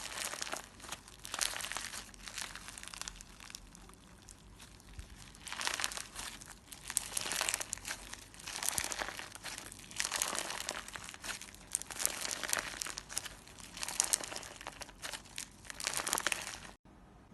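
Clear slime with glitter and small balls mixed in, squeezed and kneaded by hand: irregular crackling, crunchy bursts every second or two. It stops abruptly near the end.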